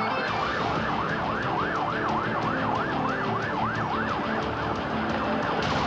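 Emergency-vehicle siren in rapid yelp mode, its pitch sweeping up and down about three times a second, stopping shortly before the end, over a steady beat.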